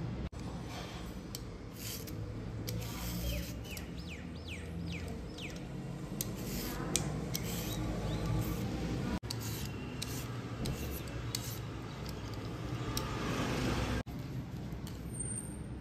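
Vegetable peeler shaving long ribbons from a cucumber: a series of short scraping strokes.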